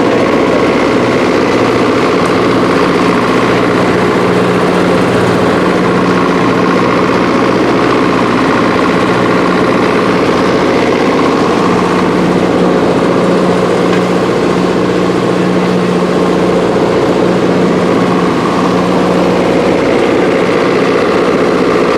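An engine idling steadily, holding an even, unchanging pitch.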